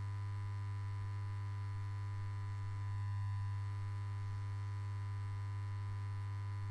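Steady low electrical hum, the buzz of a neon sign, with a fainter higher tone above it, swelling slightly about three seconds in.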